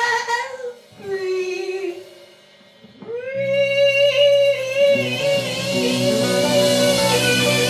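A song played by a band: a singer sings two short phrases, then from about three seconds in holds one long note over bass, guitar and drums.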